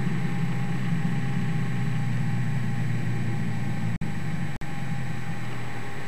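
A steady low mechanical hum, with two brief dropouts in the sound about four seconds in.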